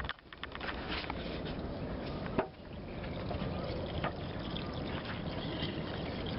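Steady wash of water along a sailboat's hull, with a few clicks and knocks; the sharpest knock comes about two and a half seconds in.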